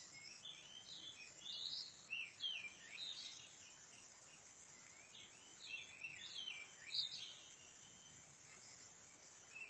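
Small birds chirping faintly with short, quick, sliding notes, in two bouts: one in the first few seconds and another around six to seven seconds in, over a faint steady outdoor hiss.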